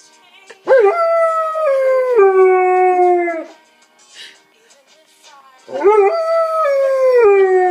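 Husky-type dog howling along to a song: two long howls, each sliding up sharply at the start and then dropping in steps to a lower held note, the second beginning about halfway through. The song plays faintly underneath.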